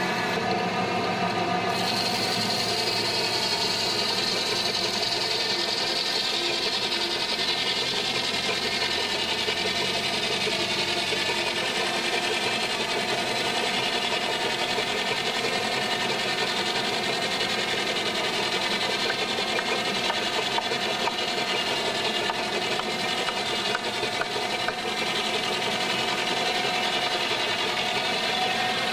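Steam-engine-driven circular saw bench running steadily while timber is fed through it, a constant whine with many overtones that does not change.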